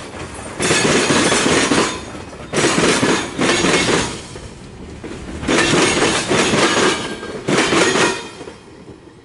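Freight train of tank cars and boxcars rolling past close by, its steel wheels clattering on the rails in loud surges about a second long with quieter gaps between. The noise fades away near the end.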